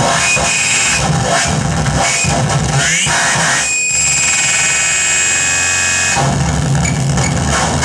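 Loud live harsh noise music: dense electronic static over a low buzz. A short rising sweep comes in near three seconds, and steady high whining tones hold for a couple of seconds after it.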